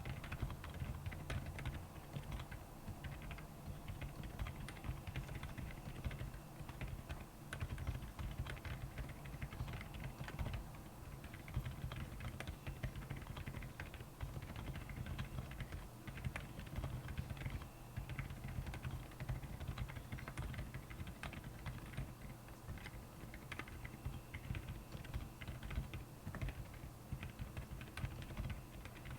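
Continuous typing on a Royal Kludge R75 mechanical keyboard fitted with Akko silent tactile switches: a fast, irregular stream of soft, dampened keystrokes.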